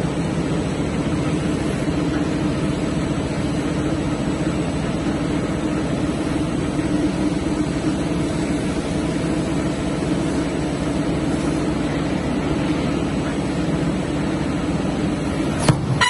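Sectional garage door panel production line running at its saw cut-off station: a steady mechanical hum and hiss of motors, with one sharp click near the end.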